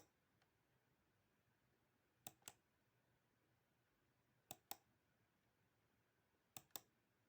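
Computer mouse clicking: a click right at the start, then three double-clicks about two seconds apart, faint over quiet room tone.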